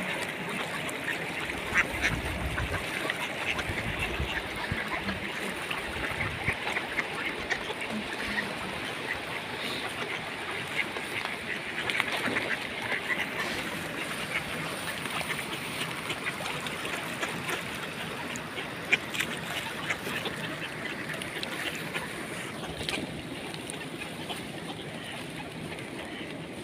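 A large flock of mallards quacking and chattering continuously, many overlapping calls at once.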